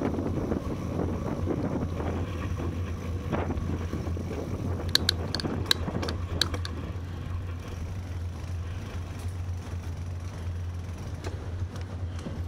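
Steady rumble of a bicycle riding on a paved towpath, picked up by a bike-mounted camera, with a short run of sharp clicks about five seconds in.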